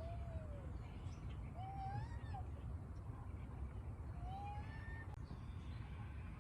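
Three drawn-out animal calls, each rising then falling in pitch and under a second long: one at the start, one about two seconds in and one about four and a half seconds in. They sit over a steady low rumble, with faint high chirps in the background.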